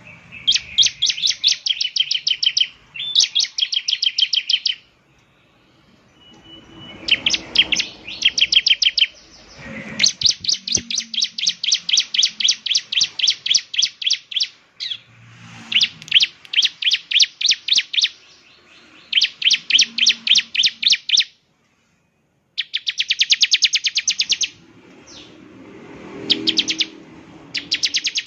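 Ciblek (bar-winged prinia) of the 'semi' type singing: bursts of rapid, evenly repeated high chirps, about ten a second, each burst lasting one to four seconds, with short pauses between.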